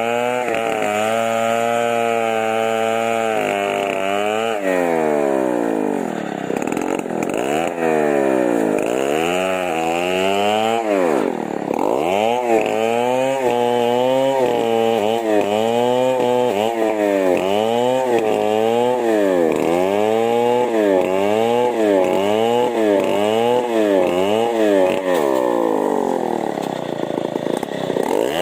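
Two-stroke chainsaw engine running at high revs, then revved down and up over and over, its pitch dipping and climbing back roughly once a second.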